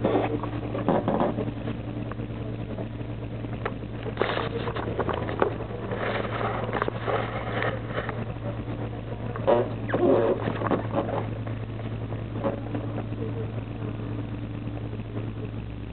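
Karosa B741 city bus's diesel engine idling with a steady low hum while the bus stands still, with scattered bouts of clatter and rattling over it.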